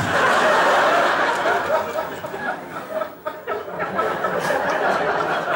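A large audience laughing together, a dense, sustained burst of laughter.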